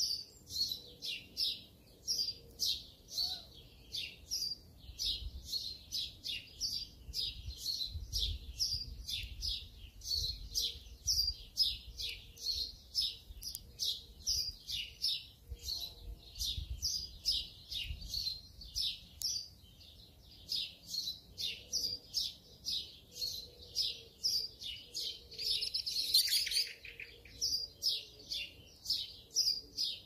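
Birds chirping: an unbroken run of short, high chirps, about three a second, with a brief denser flurry of calls near the end.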